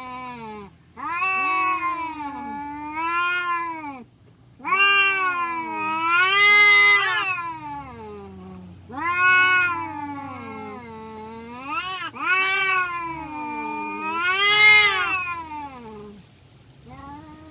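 Domestic cats yowling at each other in a fight standoff: long drawn-out caterwauls that rise and fall in pitch, about four in a row with short breaks, and another starting near the end.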